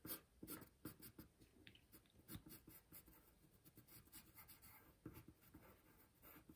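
Faint scratching of a pencil on paper in short, irregular strokes.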